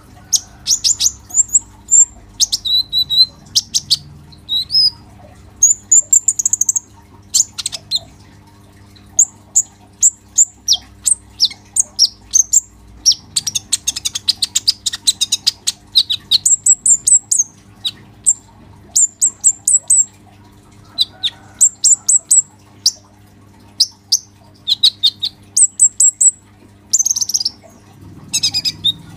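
Male purple-throated sunbird (kolibri ninja) in full, busy song: rapid runs of high, sharp chirps, twitters and trills with only short pauses, densest about halfway through.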